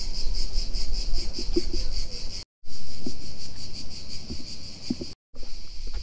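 Chorus of cicadas, a high buzz pulsing about five times a second, with two brief drop-outs. Soft footsteps on wooden boardwalk planks underneath.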